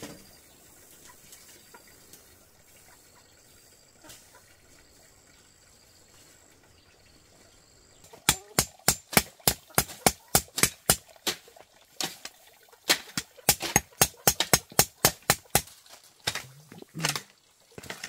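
A quiet stretch, then from about eight seconds in a fast run of sharp knocks, about four a second, lasting some seven seconds, with a few more near the end.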